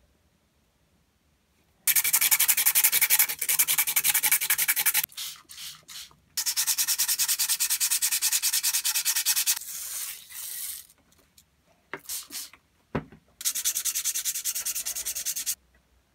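A small flat steel grease-gun part rubbed by hand on sandpaper laid flat, in rapid back-and-forth strokes: three spells of scratchy sanding, with a few light knocks between the second and third. This is flat-sanding the part clean for restoration.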